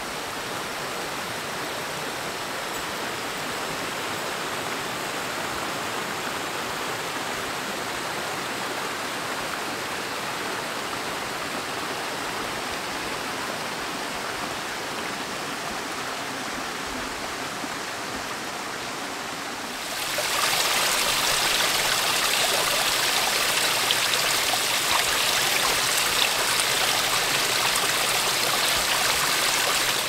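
Creek water rushing over rocks. About twenty seconds in it turns louder and brighter: the splash of a small waterfall pouring over a rock ledge into a pool.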